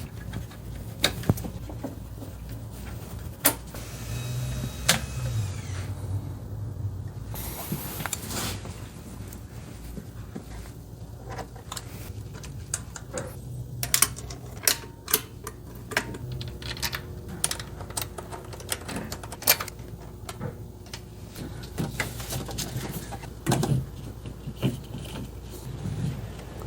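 Hand tools and metal engine parts clicking and clanking at irregular moments over a steady low hum, typical of engine reassembly work.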